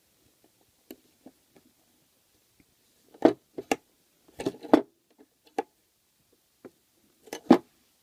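Sharp clicks and knocks of a brass padlock being set and clamped into a bench vise with padded jaws: a few scattered knocks, the loudest about three seconds in, near five seconds, and again near the end.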